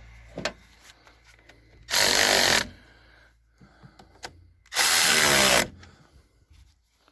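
Handheld power drill run in two short bursts, a few seconds apart, its motor winding up and down each time.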